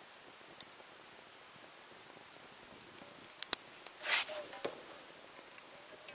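Small wood campfire crackling quietly under a frying pan, with two sharp pops a little past the middle, a brief hiss about four seconds in, and one more pop just after.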